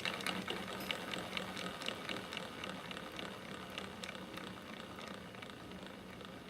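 Trex 600e Pro DFC helicopter's rotor head and drivetrain spinning down after being spun by hand, with a rapid ticking rattle from the gears that fades gradually. The owner suspects the front torque tube drive gear assembly or its top and bottom bearings.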